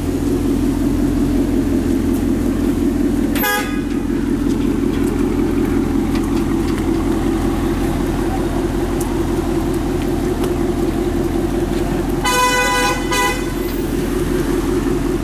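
2018 Ford Mustang GT's 5.0 V8 idling steadily through a Corsa Xtreme cat-back exhaust. A car horn gives a short toot about three and a half seconds in and a longer honk of about a second near the end.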